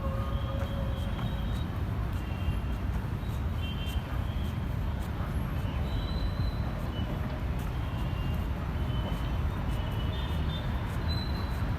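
Busy road traffic: a steady rumble of vehicle engines and tyres, with short high-pitched tones now and then.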